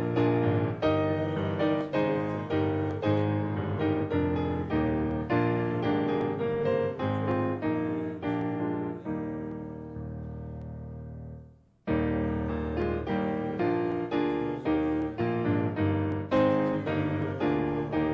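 Piano playing a hymn accompaniment in slow chords. About nine seconds in, a held chord fades away to a brief pause, as between verses, and the playing then starts again.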